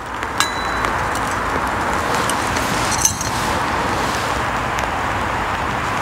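A pot of just-boiled water on a gas canister camping stove, giving a steady rushing hiss that swells once the lid is lifted. A light metal clink comes about three seconds in.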